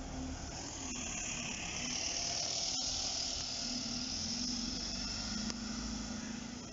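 Single-deck Alexander Dennis Enviro200 MMC bus passing close by and pulling away: a low engine hum under a high hiss that swells as it goes past, then fades.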